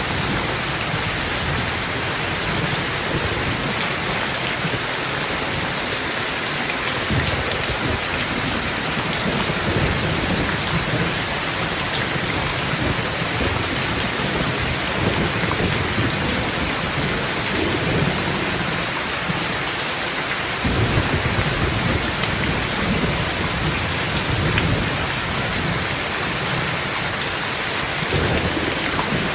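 Heavy, steady rain falling on a surface, with thunder rumbling low again and again beneath it, most strongly about three-quarters of the way through.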